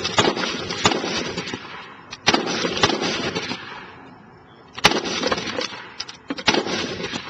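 Union Civil War repeating gun firing shots in quick groups, each shot followed by a long echo. New groups of shots start a little past two seconds and again near five seconds.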